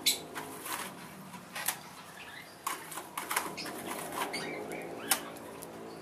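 Steel hand trowel scraping and slapping wet cement plaster onto a concrete pond wall, with irregular sharp clicks of the trowel every second or so.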